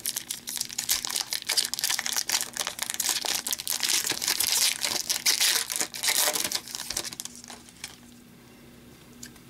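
Shiny foil wrapper of an Upper Deck hockey card pack crinkling and crackling as it is handled and torn open. The crackling stops about eight seconds in.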